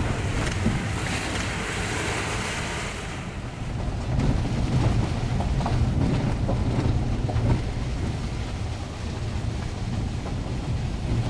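Vehicle engine and road rumble heard from inside the cabin, with a hissing rush of water during the first three seconds or so as the vehicle goes through a flooded creek crossing.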